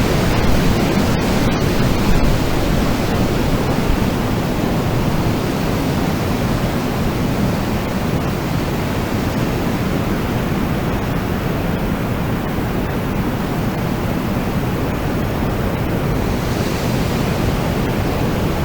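Strong wind blowing steadily, a dense low rushing noise that eases slightly after the first few seconds.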